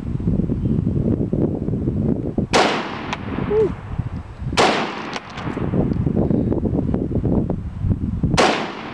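CETME battle rifle in .308 (7.62x51mm) fired three times: two shots about two seconds apart, then a longer pause before the third. Each shot is a sharp crack with a short echo trailing off. A steady low rumble runs underneath between the shots.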